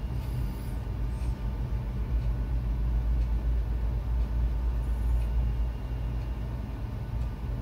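Steady low rumble and hum of background noise, with a few faint high chirps.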